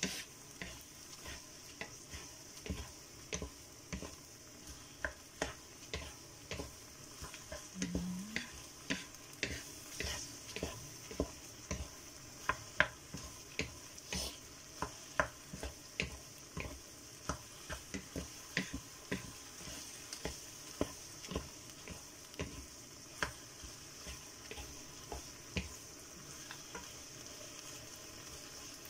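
Ground pork frying in a pan with a steady sizzle, while two wooden spatulas stir and toss the meat, knocking and scraping against the pan in irregular strokes.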